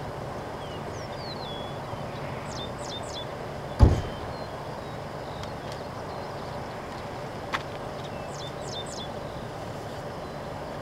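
Steady outdoor background noise with a bird calling in quick high chirps that sweep downward, in two bouts. One short low thump about four seconds in is the loudest sound.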